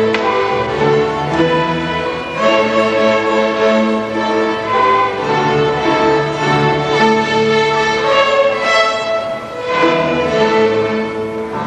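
Sixth-grade string orchestra playing, violins and other bowed strings holding notes that change about once a second.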